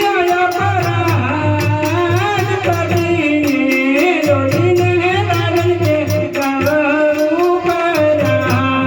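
Gujarati devotional folk music played through a PA sound system: a bending sung melody line over a steady drum beat and keyboard.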